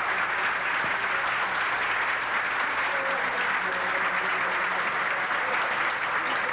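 A crowd applauding steadily and without a break, many hands clapping at once.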